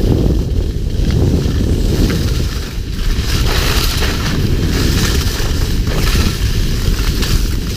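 Heavy wind noise buffeting a GoPro's microphone as the wearer skis downhill, with a hiss of skis on packed snow that swells and fades with the turns.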